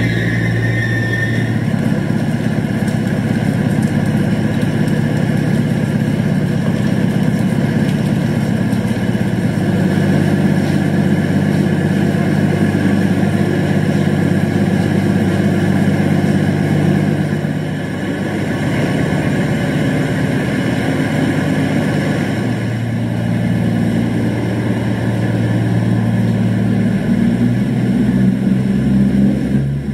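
Diesel engine idling sound from a sound-fitted model Class 221 Voyager standing still: a steady low engine note that steps up and down a few times.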